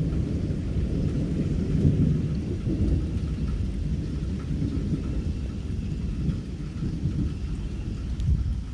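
Thunder rolling in a long low rumble that slowly eases off, with rain falling underneath.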